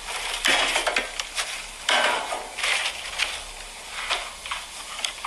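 Plastic wrapping crinkling and rustling in several short bursts as it is handled and pulled out of a stainless-steel deck oven, with a few light knocks.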